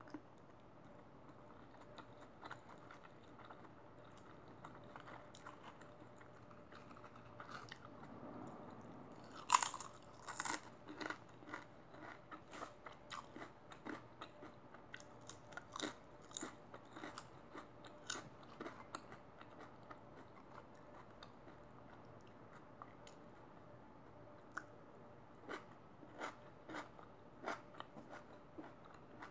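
Close-up chewing, soft at first, then from about nine and a half seconds in loud crunching of potato chips: a sharp bite followed by many irregular crisp crunches.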